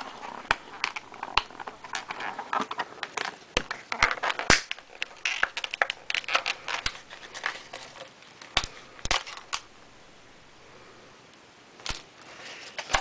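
Plastic action-figure parts and clear plastic packaging being handled: a string of sharp clicks, taps and crinkles, dying down to a lull for a couple of seconds near the end before a few more clicks.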